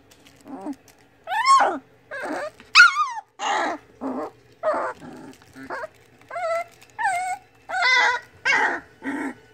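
Young Vizsla puppies whining and yelping: about a dozen short, high calls, many bending up and down in pitch, as the pups wrestle and mouth each other.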